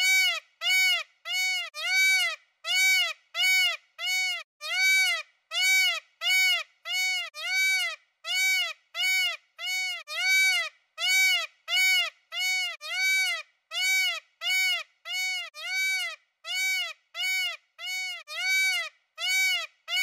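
Peacock calling: a long, even series of short calls, each rising and then falling in pitch, about one and a half a second.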